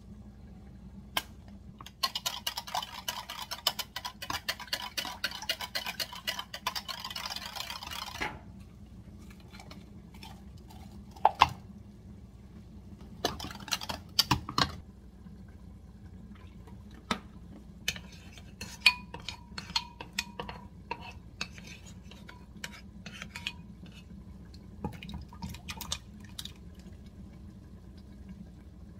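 Eggs being beaten in a clear plastic measuring jug: a fast, steady clatter of the utensil against the jug's sides for several seconds, then shorter bursts of beating and a few sharp knocks on the jug.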